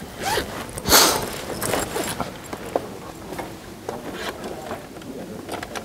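Backpack being rummaged through: a short, loud rasp about a second in, then scattered light clicks and rustles.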